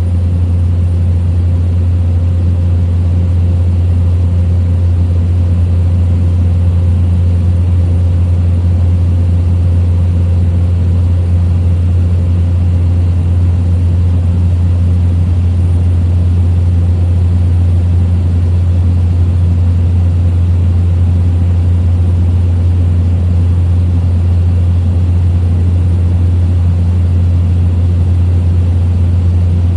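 Small plane's engine and propeller droning steadily in cruise, a loud, even, low hum with no change in pitch.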